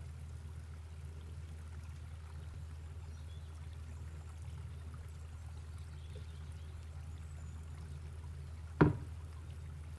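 Juice pouring from a blender jug into a glass jar at the start, over a steady low hum. About nine seconds in there is a single sharp knock as the glass jar is set down on a wooden tabletop.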